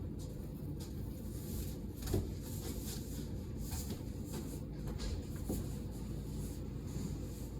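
Light handling noises, soft rustles and a few small knocks, over a steady low hum, with one slightly louder knock about two seconds in.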